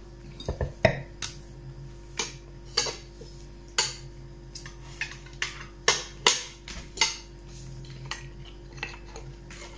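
Metal fork clinking and scraping against a glass baking dish: a dozen or so sharp clinks at irregular intervals. A heavier knock just under a second in, as a wine glass is set down on the table.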